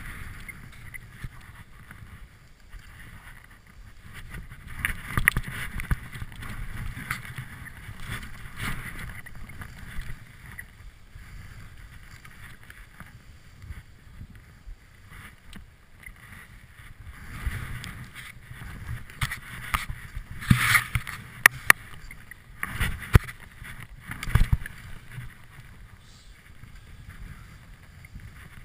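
Skis swishing through deep powder snow, rising and falling in swells. There is a cluster of sharp knocks and clatters about two-thirds of the way through.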